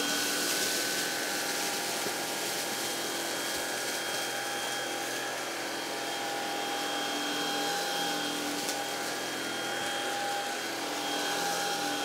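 Greenote GSC50 cordless stick vacuum running steadily, a rush of air with a steady motor whine, as its floor head is pushed over thick pile carpet, sucking up cornflakes and rice.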